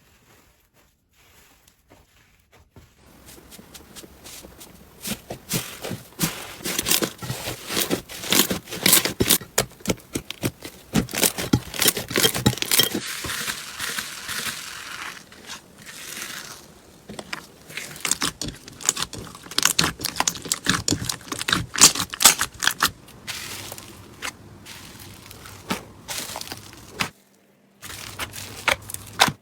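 Slime being squished and worked by hand, with dense crackling and popping clicks. It starts faint, builds after a few seconds, and breaks off briefly near the end before resuming.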